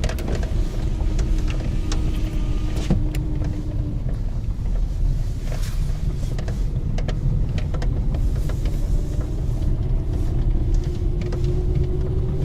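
Lada Granta driving on a rough road, heard from inside: a steady low road rumble with frequent short knocks and rattles from the front suspension, which is worn and due for replacement.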